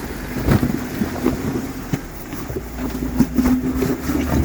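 Jeep Wrangler crawling over boulders at low speed: the engine runs steadily under load while the tyres and underside knock and scrape against the rocks in short, irregular clunks.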